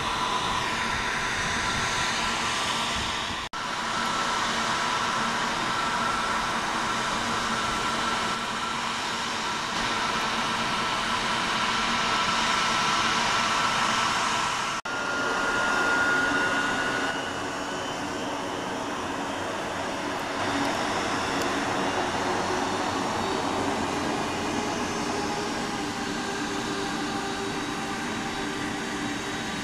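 Airbus A321neo's turbofan engines running steadily at low power as the airliner taxis: a high steady whine over a hiss. The sound drops out briefly twice; after the second break the whine rises a little, then fades, leaving a lower hum.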